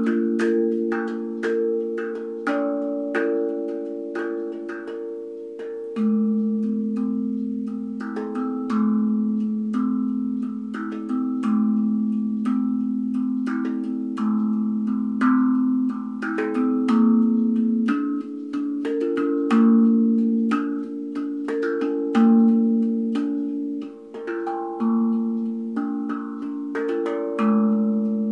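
Handmade steel tongue drum (tankdrum) played with the fingertips: a steady stream of struck notes in a self-made scale, each ringing on and overlapping the next.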